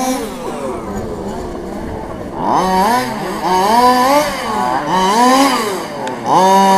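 Radio-controlled racing truck motors revving up and down in repeated rising and falling whines as the trucks corner and accelerate. The sound is loudest near the end as one truck passes close.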